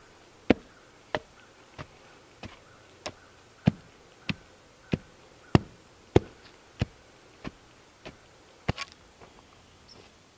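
Homemade hand tamper pounding red clay soil in a footing trench: about fourteen dull knocks, evenly spaced at roughly one and a half a second, which stop shortly before the end. The soil is being packed tight before a concrete pour.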